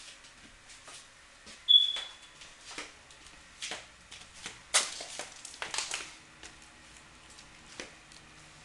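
Scattered clicks and knocks from someone moving through an empty room and handling things, with a short high squeak about two seconds in and the loudest knock near the middle.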